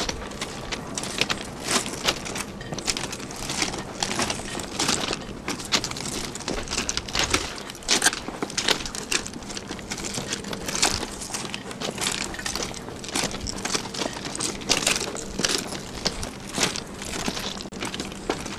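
Several people's footsteps crunching on railway track ballast: an irregular run of gravel crunches, about one or two a second.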